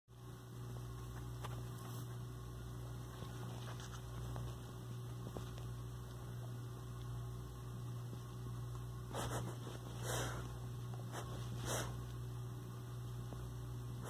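Steady low electrical hum, with a few soft scuffs in the last few seconds as a cockatiel pecks its beak at a cotton bed sheet.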